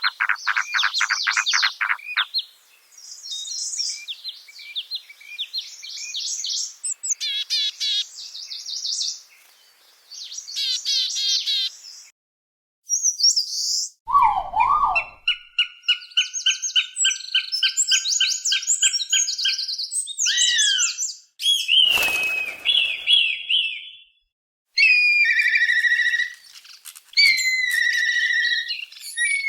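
Calls and songs of several different bird species played one after another, broken by abrupt cuts between recordings: rapid chirps and trills, and stretches of repeated whistled notes.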